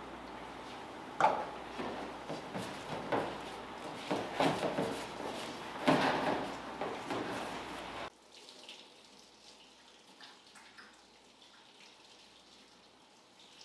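Hands kneading and squeezing soft pâte sucrée dough of butter, sugar, egg yolk and flour in a stainless steel bowl: irregular wet squishing and scraping strokes. The sound drops off suddenly about eight seconds in, leaving only faint small sounds.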